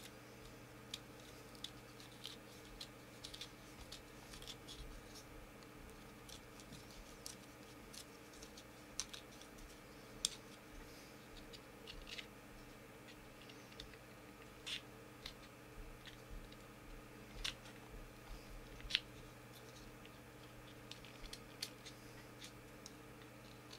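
Faint, irregular small clicks and scratches of hands working with a small object, over a steady low hum.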